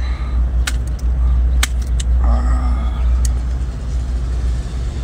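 A steady low rumble, with a few sharp clicks scattered through it and a short hummed voice sound a little after two seconds in.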